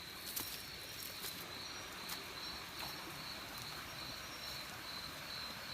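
Night insects, crickets among them, chirring in a steady high-pitched pulsing trill, with a few faint clicks.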